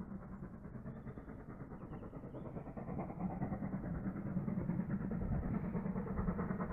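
GWR Manor class 4-6-0 steam locomotive No. 7812 Erlestoke Manor working hard up a steep bank in the distance, its exhaust beats growing steadily louder as it approaches.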